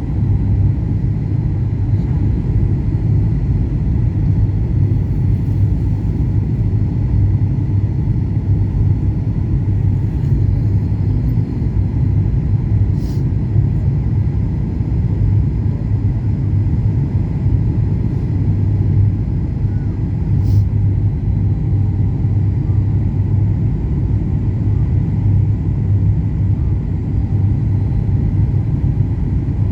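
Jet airliner cabin noise: a steady low rumble of engines and airflow heard from inside the cabin, with a faint steady high whine and two faint clicks around the middle.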